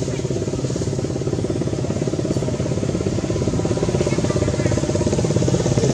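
A small engine idling steadily: a low, even hum with a fast regular pulse.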